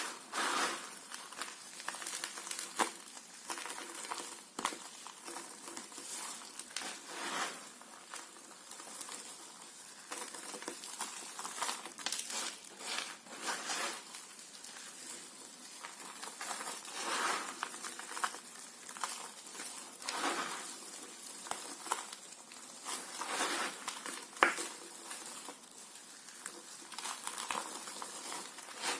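Knife cutting and scraping through bar soap in irregular strokes, a second or so apart, with one sharp click about 24 seconds in.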